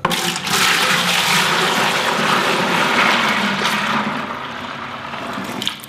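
Chilled wort pouring from a stainless steel brew pot into a plastic fermenter bucket: a heavy splashing gush that starts suddenly and tapers off over about five seconds as the pot empties.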